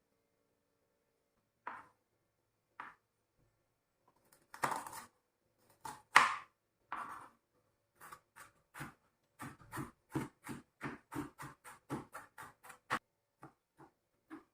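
Knife chopping on a cutting board: a few separate chops, then a steady run of quick chops at about three or four a second.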